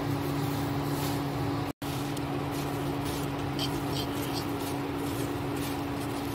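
A spatula stirring and scraping dry flattened-rice (poha) flakes in a nonstick kadai, a light dry rustle, over a steady low hum. The sound cuts out for an instant about two seconds in.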